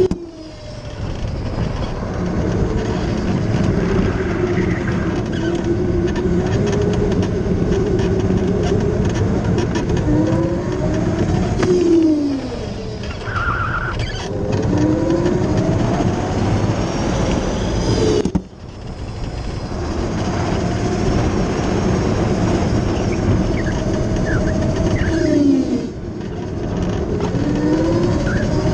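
Formula SAE race car driving hard on track, heard from onboard: its drive note rises and falls in pitch again and again as it speeds up and slows through corners, over steady tyre and road noise. The sound drops out abruptly at the start and again about 18 seconds in.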